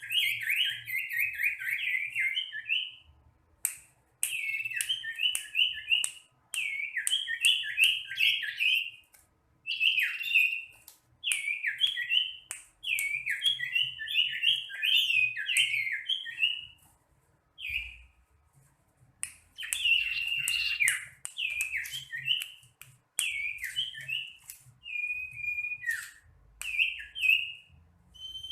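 Common iora (cipow) singing: repeated phrases of rapid, whistled chirping notes, each one to three seconds long with short pauses between, mixed with sharp clicks.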